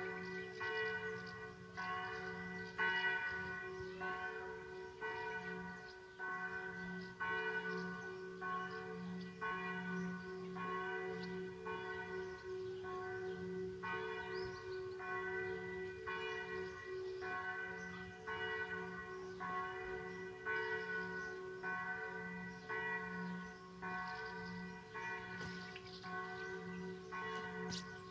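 Bells ringing in a steady sequence, a strike about every second, each one's ring running on into the next.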